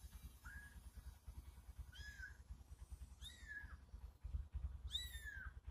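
Young kittens mewing: four short, high-pitched mews, each rising then falling in pitch, over a low rumble.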